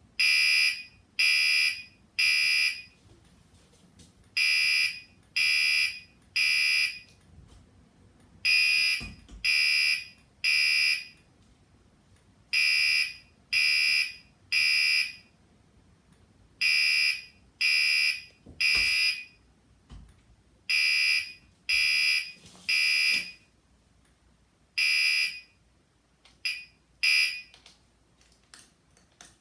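Gentex fire alarm horn sounding the temporal-3 evacuation pattern: three loud, high-pitched beeps, a pause, then three again, about every four seconds. The last round breaks off after two short beeps near the end.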